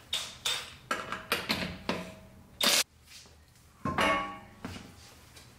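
Cordless impact wrench spinning lug nuts off a car wheel in a series of short whirring bursts, one of them loud and cut off abruptly.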